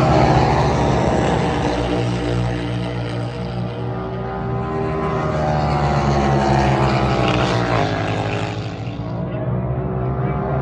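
F900R Cup race motorcycles with BMW F 900 R parallel-twin engines, ridden hard past on the circuit. The pitch climbs as they accelerate and breaks at a gear change about eight seconds in.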